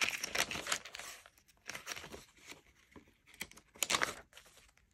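Paper pages of a handmade junk journal, avocado-dyed and patterned paper, being turned by hand: papery rustling and crinkling in about three short bursts, the loudest near the end.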